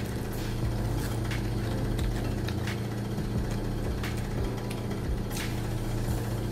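Close-up eating sounds: a person chewing fried tofu, with scattered wet mouth clicks, over a steady low hum.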